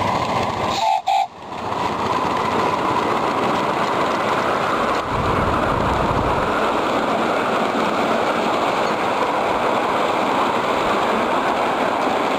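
Ride-on miniature live steam locomotive and its riding cars running along the track, a steady rolling noise throughout. The sound drops out briefly about a second in.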